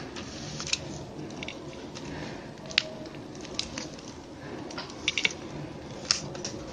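Plastic koodai-wire tape strands crackling and clicking as they are handled and threaded around a basket handle wrapped in clear plastic. The crackles are scattered and irregular, the sharpest about three seconds in and again near six seconds.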